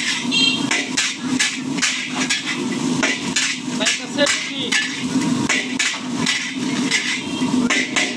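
Long metal spatula repeatedly clanging and scraping against a large steel wok while stir-frying noodles with vegetables, in irregular strikes about two a second.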